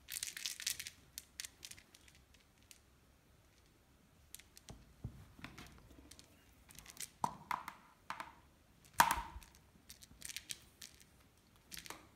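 Short bursts of scratching and rustling with scattered clicks, from a Ragdoll kitten moving about in a hard plastic cat bed; the loudest burst comes about nine seconds in.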